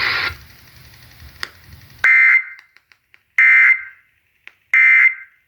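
Three short bursts of EAS end-of-message data tones, the harsh warbling digital screech of the SAME encoder closing a Required Weekly Test on weather radio, spaced about a second and a half apart. Radio hiss cuts off just before them.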